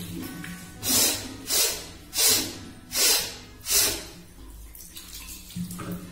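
Washing at a wash basin under a running tap: five short rushing splashes, a little under a second apart, as water is brought up to the face and nose by hand, then just the tap running.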